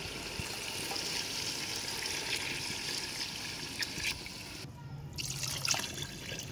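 Water pouring from a steel jug into an aluminium pot of chicken masala, splashing and trickling into the gravy. This is the stage where water is added for the pulao stock. The pour briefly drops away just before five seconds, then goes on.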